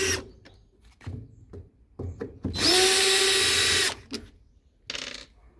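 Cordless power screwdriver with a Phillips bit running once for over a second, spinning up quickly to a steady whine as it backs out a screw, with light clicks and handling knocks before and after.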